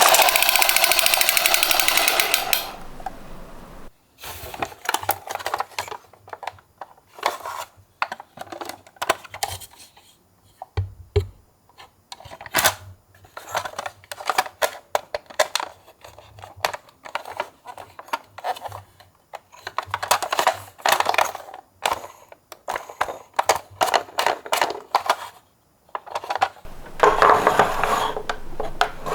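Irregular clicks and clatters of a small plastic toy ambulance being handled, after a loud pitched sound that cuts off about two and a half seconds in. Near the end a steady rolling, scraping noise takes over, like the toy car's wheels running along a track.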